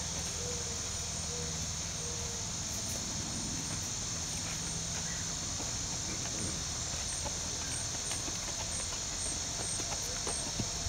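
Steady high-pitched chorus of insects such as crickets, with a faint short chirp repeating about twice a second above it.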